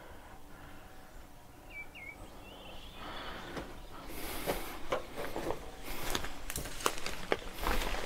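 Footsteps crunching over brick rubble and debris and brushing through weeds, irregular and close, starting about three seconds in and growing louder.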